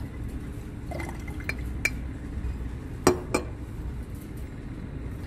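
Glass clinks from an Erlenmeyer flask of white precipitate slurry being stirred with a magnetic stir bar: a few light clicks, then a louder pair about three seconds in, over a low steady hum.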